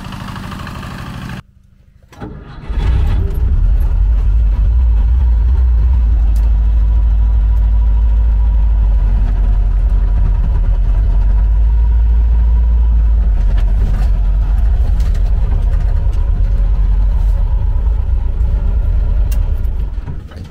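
A walk-behind tractor's engine chugging briefly, then the air-cooled V4 engine of a LuAZ Soviet jeep, heard from inside its cabin, starting about two seconds in and running steadily with a loud, low rumble.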